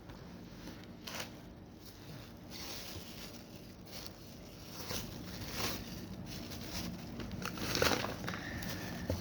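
Packaging being handled while the kit is unboxed: irregular crinkling and rustling, loudest about eight seconds in.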